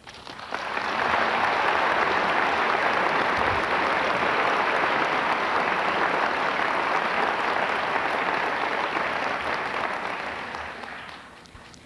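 Audience applauding. It swells over the first second, holds steady, then dies away over the last couple of seconds.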